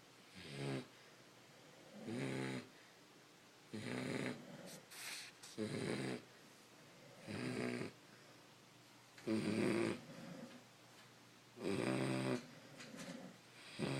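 Beagles snoring in their sleep: a loud, rasping snore on each breath, about every two seconds, with softer snuffling snores in between some of them.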